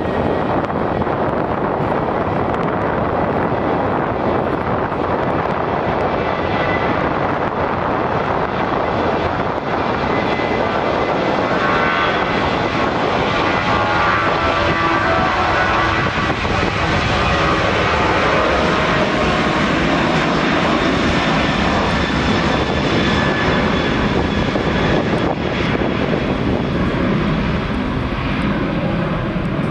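Boeing 737 twin-jet on its takeoff roll, engines at takeoff thrust: a loud, steady jet noise with a high whine that comes through most clearly midway as the aircraft passes.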